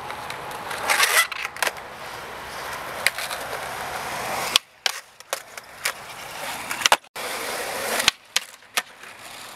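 Skateboard wheels rolling on smooth concrete, a steady rumble broken by several sharp clacks of the board striking the ground.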